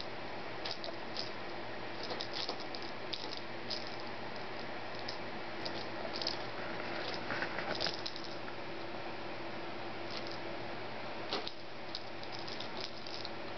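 Kitten playing in a fleece bed inside a wire basket: irregular light scratching, rustling and clicking as it twists and bats at a hanging toy, with one sharper knock about eleven seconds in. A steady faint hum runs underneath.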